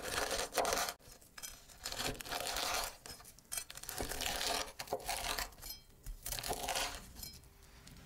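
Chef's knife slicing through a crispy deep-fried breaded chicken cutlet on a wooden cutting board: about five crackling crunches in a row, each lasting around a second, as the crust breaks under the blade.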